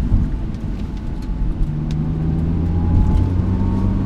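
2017 Nissan GT-R's twin-turbo V6 running at light throttle with wet-road tyre noise. A faint tone slowly rises in pitch over the second half as the car gathers speed.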